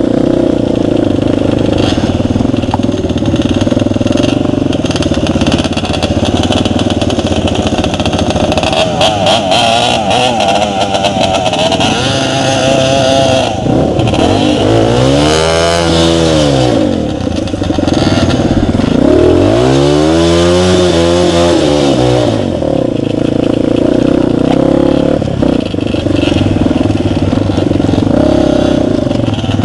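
Romet CRS 125 dirt bike engine running steadily under load over rough ground, revving up and easing off twice near the middle.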